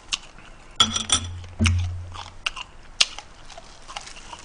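Close-miked chewing of spicy blue crab, with sharp crunches and clicks of the shell breaking between the teeth, and a couple of short low hummed sounds about a second in.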